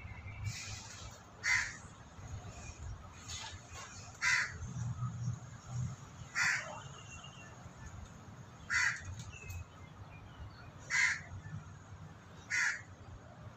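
Crow cawing off-screen: single short caws repeated about every two seconds, six in all.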